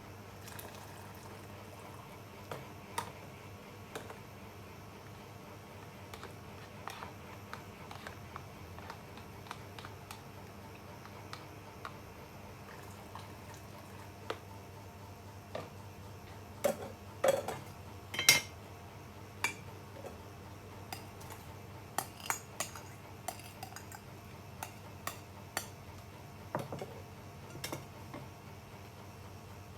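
Cooking utensils clinking and knocking against pans and dishes: scattered single clinks, with a busier, louder run just past halfway. A steady low hum runs underneath.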